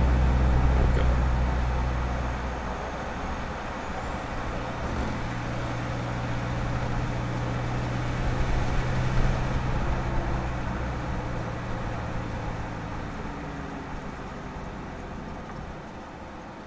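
Isuzu KB300's 3.0 turbo-diesel engine and stock exhaust running while the bakkie drives, heard from under the truck together with tyre and road noise. Loud at first, it eases off about two seconds in, then holds a steady engine note before fading near the end.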